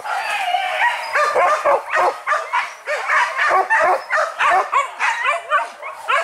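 A pack of hunting dogs barking and yelping over one another in a rapid, continuous string of barks.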